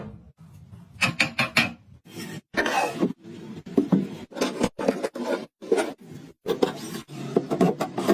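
Woodworking handling sounds in quick succession: sharp knocks and clicks on wood with short stretches of scraping or rubbing, cut off abruptly several times.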